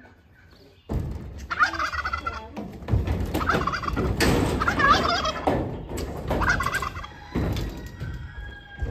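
Farmyard poultry gobbling in several rapid warbling bursts, over heavy knocks and thumps at a livestock trailer being loaded.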